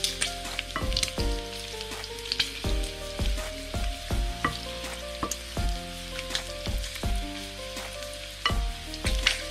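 Pork belly pieces sizzling in hot fat in a stainless steel pan, stirred with a wooden spoon that clicks and scrapes against the pan. Plucked background music plays underneath.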